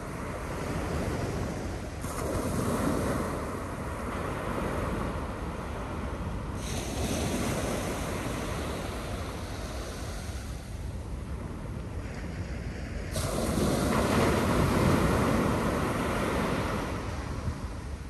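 North Sea surf breaking and washing up the beach in three swells, the biggest in the last few seconds, with wind rumbling on the microphone underneath.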